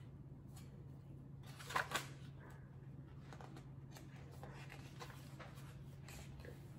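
Pages of a hardcover picture book being opened and turned by hand: two brief papery rustles about two seconds in, then fainter page flips, over a steady low hum.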